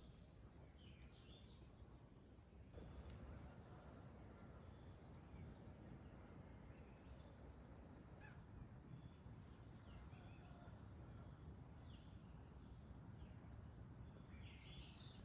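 Faint outdoor ambience, close to silence: insects trilling high and steadily in pulses over a low hiss, with a few faint chirps.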